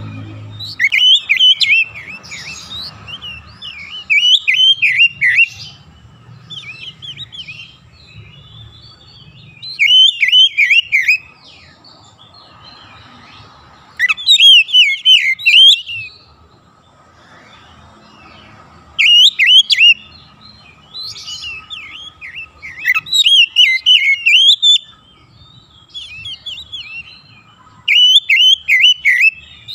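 Oriental magpie-robin (kacer) singing in loud bursts of rapid, varied whistled notes that sweep quickly up and down, each burst lasting a second or two and coming every few seconds. A faint steady high tone runs underneath.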